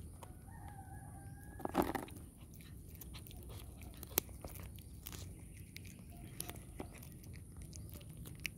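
A cat chewing cooked fish with bones in it, right at the microphone, with many small sharp clicks as it bites. One louder bump comes about two seconds in.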